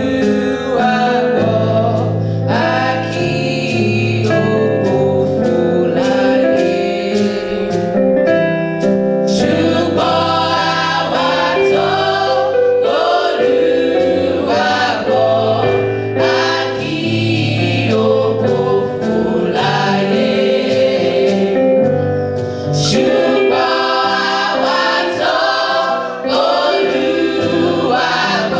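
Gospel choir of young women singing a gospel song in full voice, with instrumental backing.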